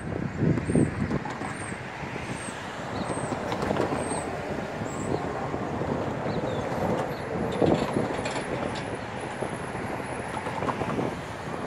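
Distant FEC freight train led by EMD SD40-type diesel locomotives approaching; its engines make an uneven rumbling noise mixed with wind on the microphone. A short high chirp repeats about every second through the first few seconds.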